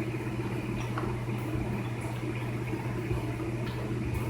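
Steady low machine hum with a few faint clicks over it.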